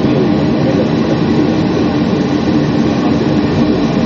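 Steady low rumble of a running vehicle, engine and road noise holding level throughout.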